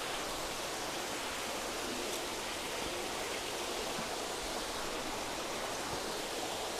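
Steady rush of running water flowing into the fish vats of a recirculating aquaculture system.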